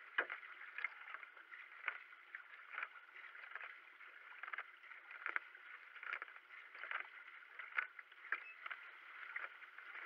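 Double-bladed kayak paddle strokes splashing into the water in a steady rhythm, a little more than one stroke a second, over the hiss of water running along the racing kayak's hull.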